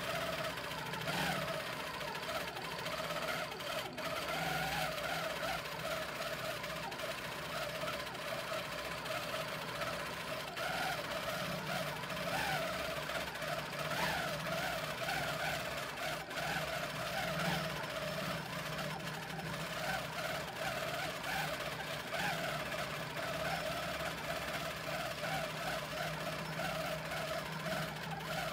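Handi Quilter longarm quilting machine stitching a dense meander filler at 11 stitches per inch. It runs steadily, its hum wavering up and down in pitch as the head is moved.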